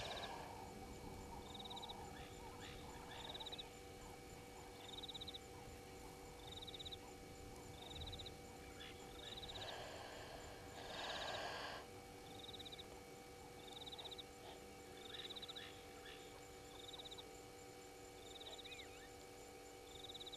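Faint outdoor ambience with a small bird's short high trill repeated about every one and a half seconds, over a faint steady hum. A short rush of noise comes about ten seconds in.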